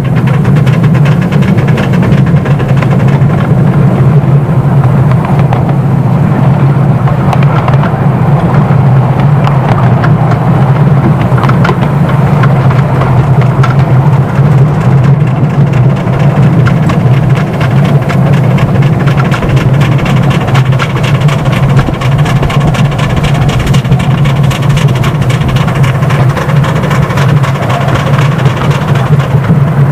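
Miniature steam locomotive hauling its riding car along the track, heard from right behind it: a loud, steady running rumble with rapid clicking throughout.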